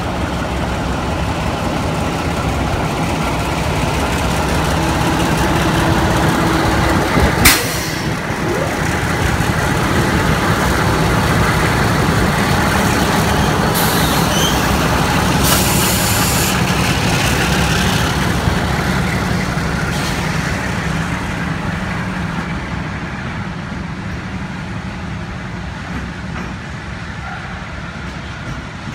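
Two MLW diesel-electric locomotives in multiple running past at close range with their engines working hard, hauling a container freight train. There is a sharp bang about seven seconds in and a hiss around the middle. The engine sound then fades as the container wagons roll by.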